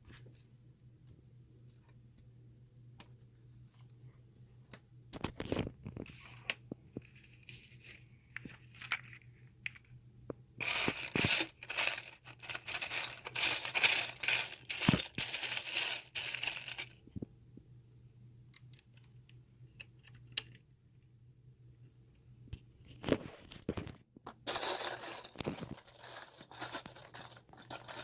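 Small plastic Lego pieces clicking and clattering as they are sorted and handled, with two longer stretches of loud rattling and rustling, over a faint steady low hum.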